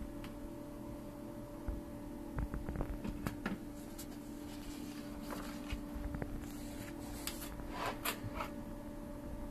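Paper sheets handled and shifted by hand, with scattered light rustles and taps in two clusters, over a steady hum.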